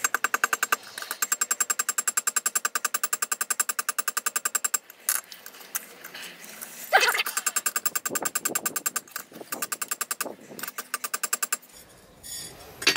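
Hand hammer striking a hot railroad-spike blade on a length of railway track used as an anvil: rapid ringing blows in two long runs, with a pause of about two seconds between them.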